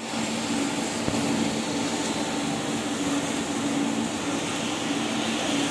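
Pan mixer of a fly ash brick machine running: heavy rollers and a scraper turning through damp fly ash mix. It gives a steady machine hum over an even rough noise.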